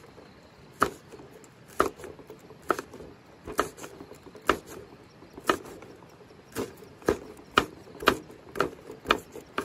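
Chopping with a blade striking a wooden surface: sharp, evenly spaced strokes about a second apart that speed up to about two a second in the second half.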